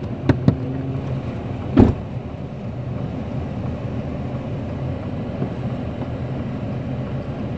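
Steady low hum of a car's running engine heard from inside the cabin, with a few sharp knocks in the first two seconds, the loudest just under two seconds in.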